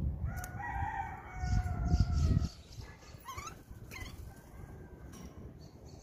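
Birds calling: one long call lasting about two seconds, with a low rumble under it, then two short rising chirps about a second apart.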